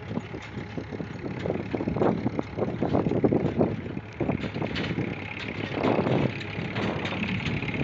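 A vehicle's engine running, with uneven rumbling that swells and eases every second or so.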